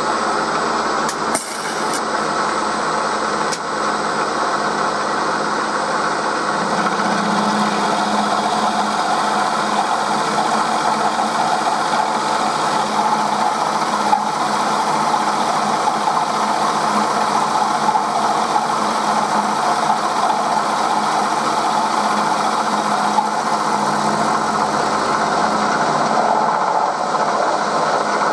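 1938 Bridgeport M-head milling machine taking a roughing cut with an end mill turning at about 1000 RPM, cutting steadily through a metal cylinder block under flood coolant. A loud, even whirr of spindle and cutter.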